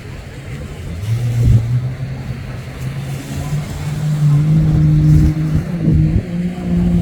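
Racing jet ski engine at high revs, coming in about a second in and climbing gradually in pitch while growing louder.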